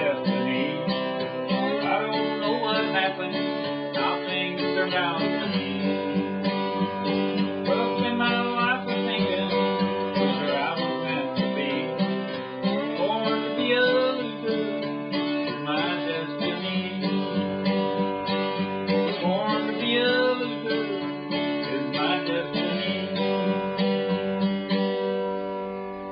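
Acoustic guitar, laid flat and strummed steadily in a country song, with a wavering melody line over the chords. The song finishes just before the end.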